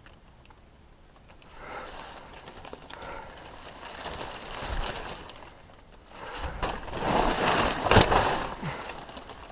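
Footsteps and rustling as a player moves on foot, in uneven swells that are loudest about eight seconds in.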